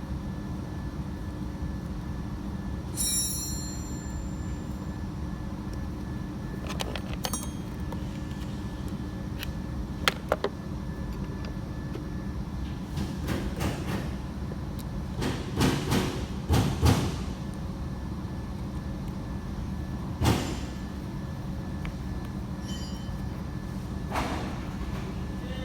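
Steady mechanical hum, with scattered knocks and clatters: a pair about ten seconds in, a loud cluster around the middle, and a couple more later.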